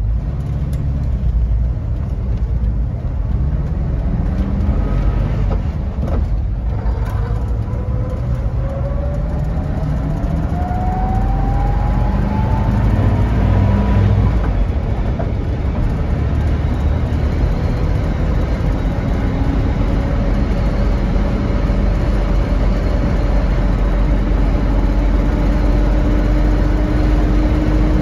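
The air-cooled flat-four engine of a 1964 VW Bus running while driving, heard from inside the cab. Its whine climbs as the bus speeds up, drops about halfway through with a gear change, then climbs again more slowly.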